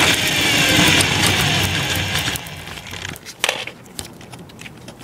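Remote-control truck running on pavement, heard from a camera on its chassis: a high motor whine falling in pitch as it slows, over rattling tyre noise, fading out about two and a half seconds in. A few light clicks and knocks follow.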